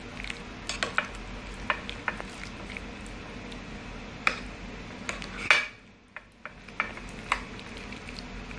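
A metal utensil stirring a thick cream-cheese and chopped-vegetable mixture in a glass bowl, with irregular clinks and scrapes against the glass. The sharpest clink comes about five and a half seconds in.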